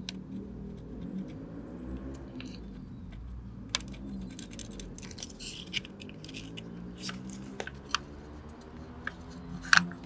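Hands working a soldering iron at the pins of a cooling-fan resistor's plastic connector: small scattered clicks and scratches, the loudest clicks near the end.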